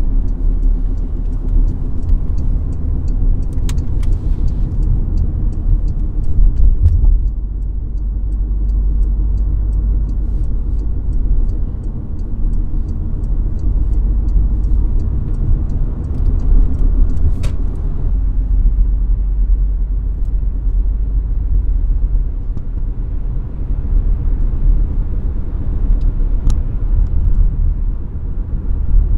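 Porsche Macan driving with heavy low road rumble and a steady droning hum over it. The hum is strongest in the first few seconds and again about sixteen to nineteen seconds in. It is the humming noise the owner treats as a fault.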